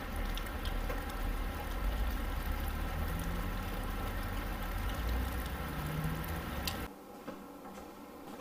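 Steady rain falling outdoors, with a low rumble under it. About seven seconds in it cuts off suddenly to a quieter indoor background.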